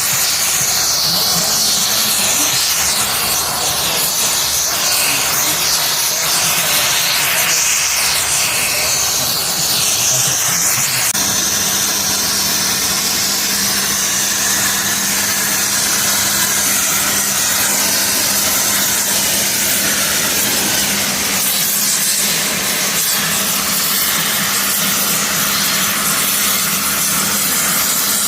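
Electric arc welding on a heavy steel axle beam: a steady loud hissing and crackling of the arc, with a low steady hum joining partway through.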